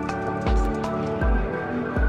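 Background music with a steady, slow beat: a deep drum hit about every three-quarters of a second under sustained pitched notes.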